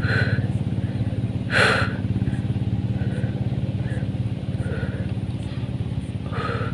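Small engine running steadily at an even pace, most likely a two-wheel hand tractor working the paddy fields. A few short higher sounds ride over it, the clearest about one and a half seconds in.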